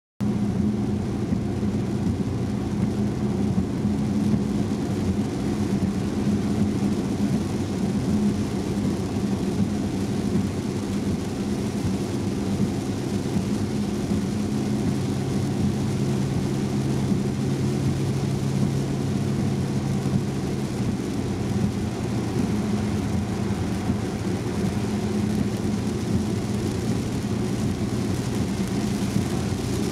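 Steady driving noise of a Volvo S90 on a wet road in heavy rain: a low drone of engine and tyres with a steady low hum, over an even hiss of tyre spray and rain. The hum grows stronger for several seconds about halfway through.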